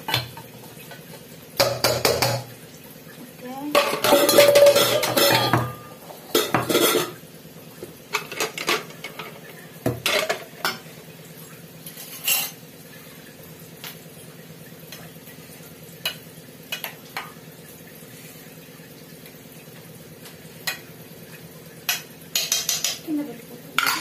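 Steel kitchen dishes, pots and utensils clattering and clinking as they are handled, in several bursts: the loudest about four seconds in, scattered single clinks through the middle, another short run near the end. A steady low hum runs underneath.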